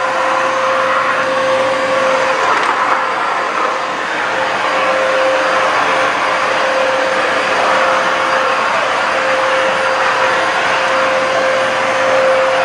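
BISSELL PowerEdge Pet corded stick vacuum running steadily while it is pushed across a tile floor. Its motor whine holds one constant tone over the rush of air.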